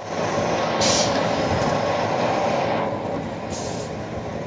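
Cookie depositing machine running with a steady mechanical rumble as its star nozzles pipe dough onto the tray, with two short hissing bursts, about a second in and near the end.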